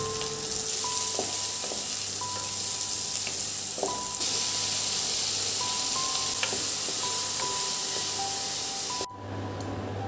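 Chopped onions and tomatoes sizzling in hot oil in a pan, a steady frying hiss that cuts off abruptly about nine seconds in. Soft background music plays along with it.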